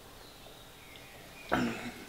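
Quiet background with faint high chirps, then about one and a half seconds in a short, loud burst of breath and voice from the man, lasting about half a second.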